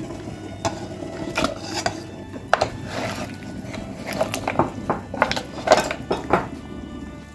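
Dishes and utensils clinking and knocking, a dozen or so sharp clinks with a short ring on some, over background music.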